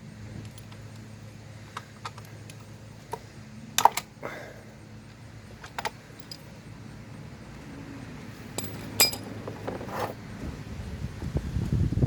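Steel socket and ratchet tools clinking and tapping as a 17mm socket is fitted to the motorcycle's oil drain plug, with a few sharper metallic clinks spread through and a low steady hum beneath. Handling noise grows louder near the end.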